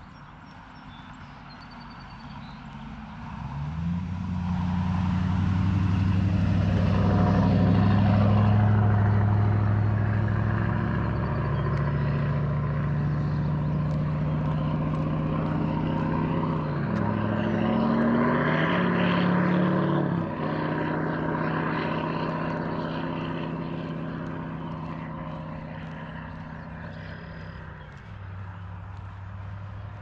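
An engine's hum growing louder over a few seconds, shifting pitch briefly in the middle, then slowly fading away as it passes by.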